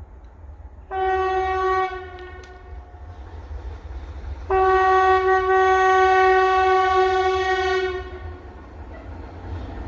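Locomotive horn sounding two single-pitched blasts: a short one of about a second, then a longer one of about three and a half seconds, over a low rumble.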